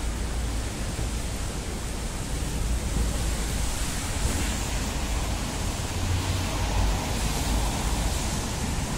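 Steady hiss of rain falling on wet paving stones, with a low rumble underneath.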